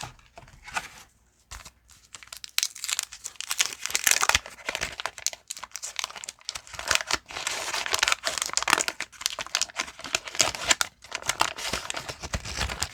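Wax paper wrapper of a 1989 Fleer baseball card pack being torn open and crinkled, with dense crackling starting about two and a half seconds in and a short lull near the end.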